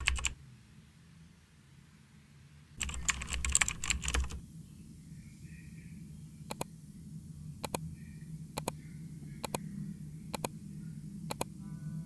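Keyboard typing clicks: a single click, then a quick run of keystrokes, then single taps about once a second over a faint low hum.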